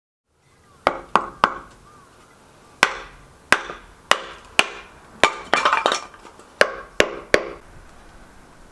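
About a dozen sharp, ringing knocks at an uneven pace, with a short clattering run just past the middle: wood being struck.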